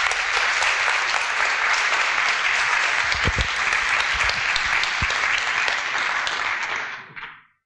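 Audience applauding, a steady clapping of many hands that dies away near the end.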